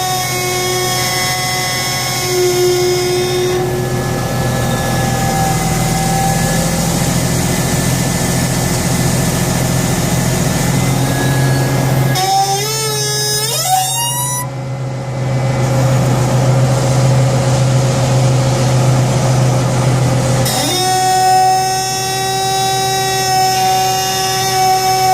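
Caterpillar 836G compactor's hydraulic steering squealing, a steady high-pitched tone with overtones over the running diesel engine, the squeal heard only on left turns. The pitch wavers and slides about halfway through, then the squeal drops out for several seconds, leaving the engine hum, and comes back near the end.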